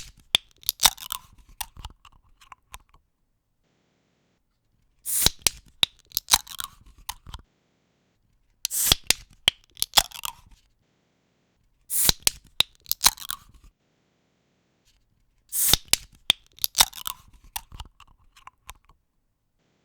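Aluminium beer can pull-tabs cracked open over and over: each opening is a sharp click and a short fizzing hiss of escaping carbonation, followed by a few smaller clicks. There are four full openings about every three and a half seconds, plus the end of one at the very start, with silence between them.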